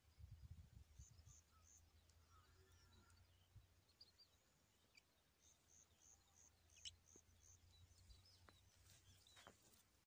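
Near silence with faint, high bird chirps in short quick runs of three or four notes, and a low rumble of handling noise in the first second.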